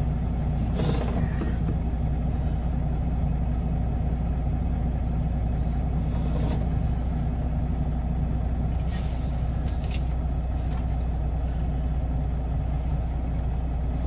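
Semi truck's engine running steadily with a low hum, with a few brief creaks and rattles.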